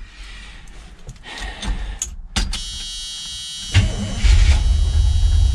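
A steady electric buzz comes on about two and a half seconds in. A second later the Chevrolet 305 small-block V8 cranks and catches, and it keeps running with a loud, low, even sound.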